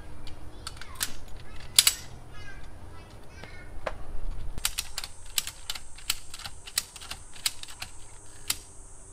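Ratchet strap being worked by hand, its ratchet and hooks clicking in irregular runs of sharp clicks. The clicks grow busier about halfway through. Faint voices talk underneath.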